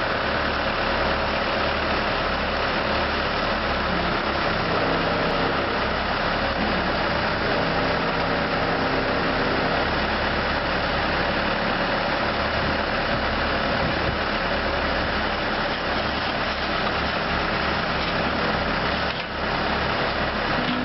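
Case 580L backhoe's four-cylinder diesel engine idling steadily.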